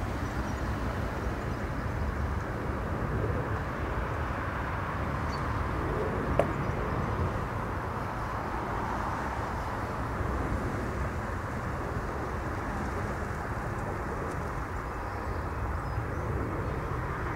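Steady rumble of airliner jet engines heard outdoors, with one sharp click about six seconds in.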